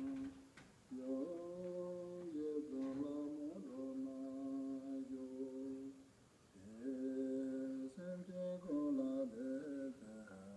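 Voice chanting a melodic Buddhist supplication to Tara, holding long notes that step up and down between pitches, with short pauses for breath, one about six seconds in.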